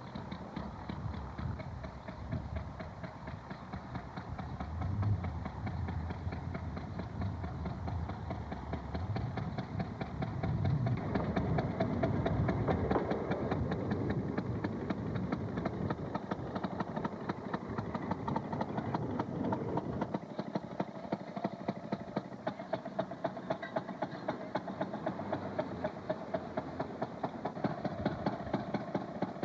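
Railroad motorcar's two-stroke engine running with a rapid popping exhaust, along with rail noise from the car on the track. From about two-thirds of the way through, the popping settles into a steady, even beat.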